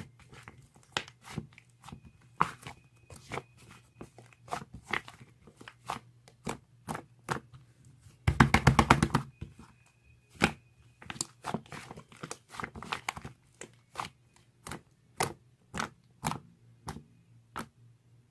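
Slime being squeezed and poked by hand, giving irregular sharp clicks and pops. About eight seconds in comes a dense crackling stretch lasting about a second, the loudest part.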